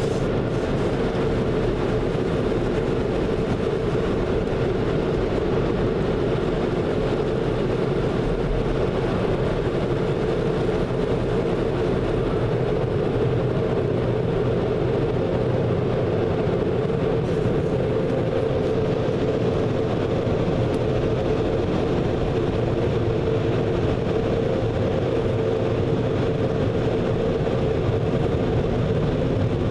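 Car wash tunnel air dryers blowing, heard from inside the car's cabin: a steady drone with a constant hum running through it.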